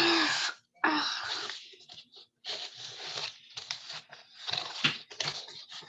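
Rustling, crinkling handling noise from objects being moved close to the microphone, in irregular bursts, loudest in the first second and a half.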